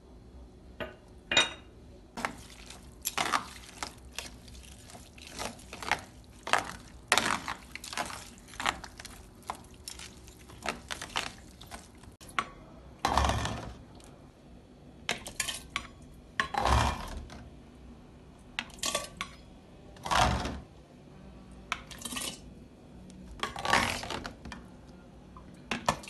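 Metal utensils clinking and scraping in a stainless steel pot of tomato pickle, first as quick, busy stirring, then as a metal cup scooping the pickle out and pouring it into a glass jar, with louder, deeper scoop-and-pour sounds about every three and a half seconds.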